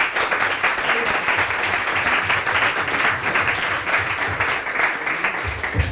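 Audience applauding: a dense, steady run of many hands clapping. There is a low thump near the end.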